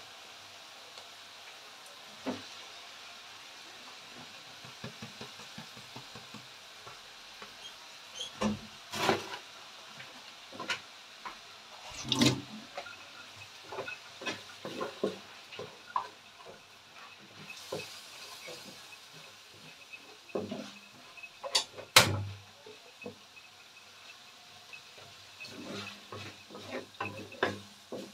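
Seafood and onions sizzling in a wok while a wooden spatula stirs them, scraping and knocking against the pan. A faint steady hiss runs under irregular sharp knocks, the loudest about 9, 12 and 22 seconds in.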